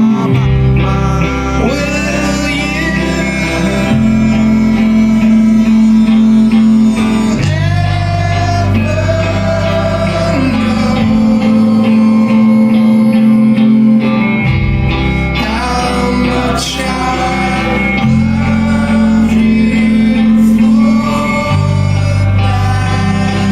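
Emo rock band playing live: guitars over a bass line that shifts note every few seconds, with a voice singing.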